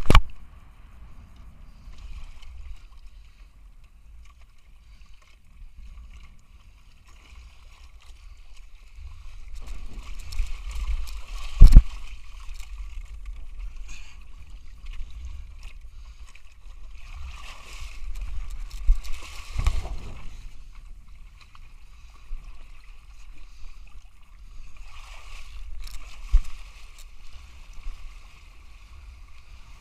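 Outdoor water sounds from a windsurfing session: wind rumbling on the microphone and water splashing and sloshing. A few sharp knocks cut through, the loudest a double knock about twelve seconds in and another about twenty seconds in.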